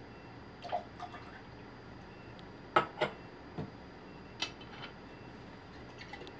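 Liqueur dribbling out of a steel bar jigger during a cocktail build, with a few sharp metal clinks of the jigger and shaker. The loudest are two clinks close together about three seconds in, followed by a few lighter clicks.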